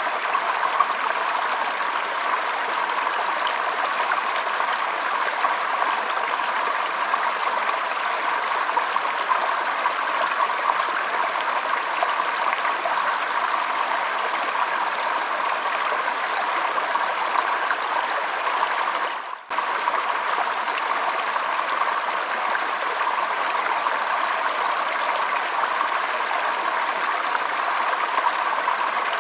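Shallow stream flowing and trickling in a steady, even rush of water. The sound dips out briefly about two-thirds of the way through, then carries on unchanged.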